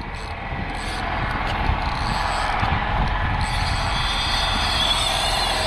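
Spinning fishing reel being cranked to bring a hooked fish up to the boat, its gears whirring over a steady hiss, with a higher whine joining a little past halfway.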